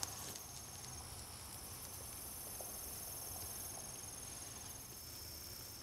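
Faint, steady high-pitched trilling of insects.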